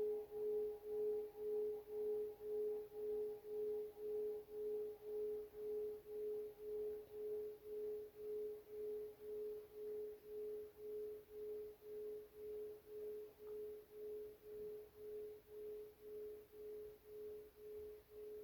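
A meditation bell's long ring slowly fading away: a steady hum that wavers in loudness about twice a second.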